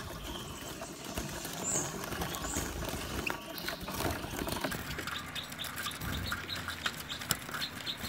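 Caged European goldfinches fluttering and beating their wings, a busy rustle full of small clicks, with a few short high chirps.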